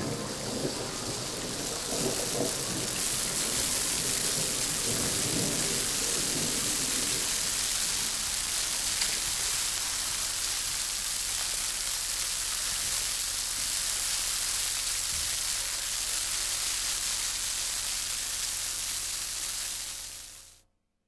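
Steady, dense rain sound, a hiss heavy in the highs, with low musical tones under it for the first several seconds; it cuts off suddenly near the end.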